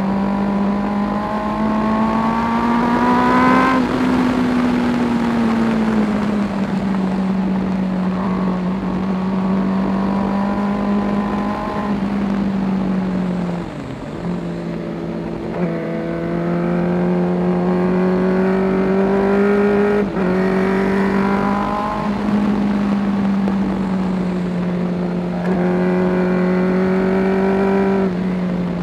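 Suzuki GSX-R sport bike's inline-four engine running at speed, its note holding mostly steady with small rises and falls. The revs drop briefly about 14 and 20 seconds in and again near the end, then pick up.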